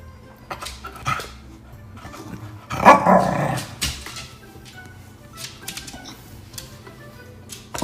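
Corgi barking a few times on the "speak" command, the loudest bark about three seconds in.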